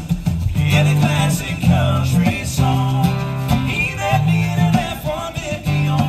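Live acoustic band music: two acoustic guitars strumming under a lead singer's voice, over steady low bass notes that change about once a second, in a country style.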